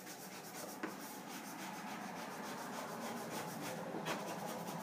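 Squeegee scraping over a wet vinyl decal in quick repeated strokes, pushing the soapy application water out from under the stripe.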